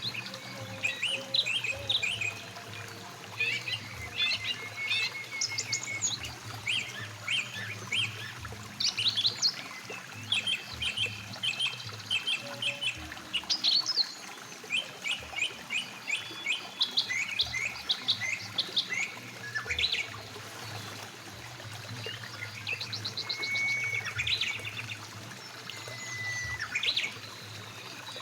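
Several birds chirping and calling in quick short notes and trills, over the steady rush of a mountain river.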